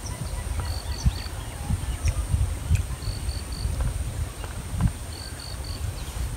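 A bird repeating a short, high three-note call about every two seconds, over wind rumbling on the microphone and a few faint clicks.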